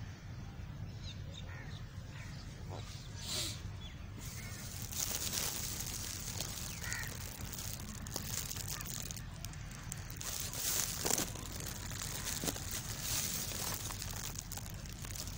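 Outdoor ambience in a buffalo yard: a steady low rumble with scattered faint clicks and a few faint bird calls.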